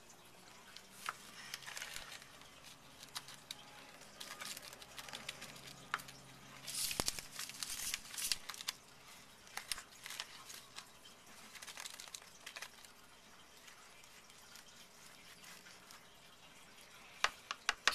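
Crinkling and rustling of a plastic packet of powdered mix, with light scattered clicks and taps as powder is scooped into a plastic cup. The rustling is louder for a couple of seconds around the middle.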